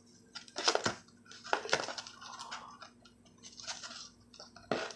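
Trading cards in plastic holders being worked out of a tightly packed box, with a run of irregular scraping and rustling strokes as they rub against one another.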